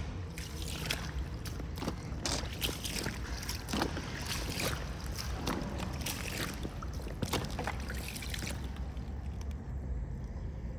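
Footsteps on wet stone ballast in boots with crushed aluminium cans duct-taped to the soles: irregular crunching, scraping steps over a steady low rumble, thinning out near the end.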